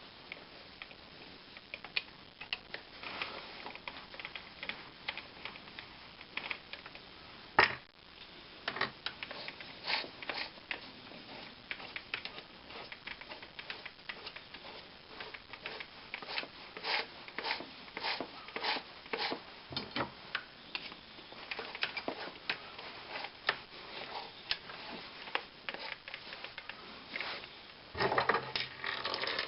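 Irregular clicks and knocks of tools and metal lathe parts being handled and fitted, with one sharp knock about eight seconds in and a quicker run of clatter near the end.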